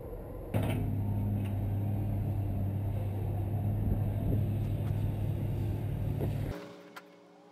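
A steady low machine hum, like an engine running, starting suddenly about half a second in and cutting off shortly before the end.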